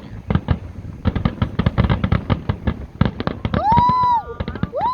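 A fireworks display going off in quick succession: a dense run of bangs and crackles. Two long high-pitched tones, each rising, holding and then falling, sound over it near the end.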